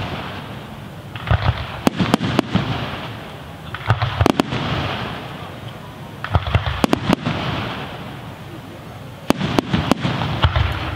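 Aerial firework shells bursting in four salvos, each a cluster of sharp bangs about every two and a half to three seconds, followed by a fading hiss.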